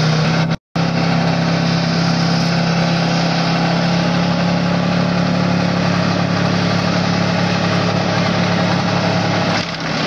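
Car engine held at a steady high drone while doing a burnout in its own tyre smoke. The sound cuts out for a moment under a second in, and the drone eases near the end.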